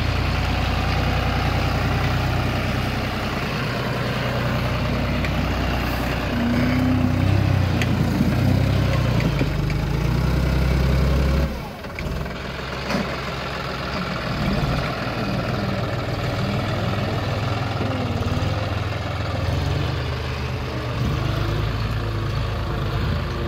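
Tractor diesel engine running steadily while working a front loader through a soil heap. The engine is louder for a few seconds in the first half, then drops off abruptly about halfway through.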